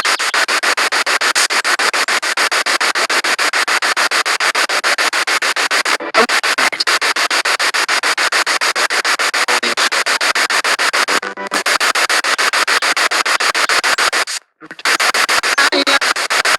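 Spirit box radio sweeping through stations: loud hiss and static chopped into a rapid, even pulsing as it jumps from frequency to frequency, cutting out briefly near the end.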